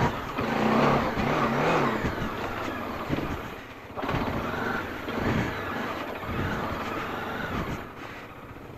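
Bajaj Dominar 400's single-cylinder engine revving up and down over a rocky dirt trail. The throttle briefly closes about three and a half seconds in, then opens again, and the engine eases off near the end.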